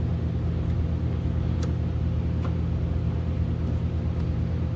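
A steady low mechanical hum made of several fixed low pitches, with a few faint light clicks at about one and a half and two and a half seconds in.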